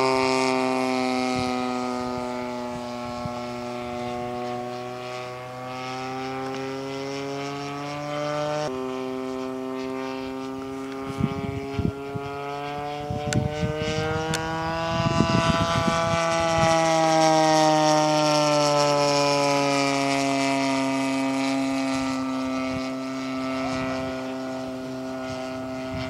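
Seagull Spitfire RC warbird's DLE 35cc single-cylinder two-stroke petrol engine running in flight overhead, its pitch sliding down and back up as the plane passes and turns. The pitch jumps up suddenly about nine seconds in, and the engine grows loudest just past the middle before fading again. Brief crackles and buffets hit the microphone around the middle.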